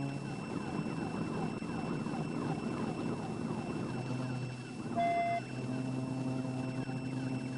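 Police patrol car in a high-speed pursuit at about 90 mph, heard from inside the cabin: steady engine, wind and road noise, with the siren sounding in quick repeating sweeps behind it.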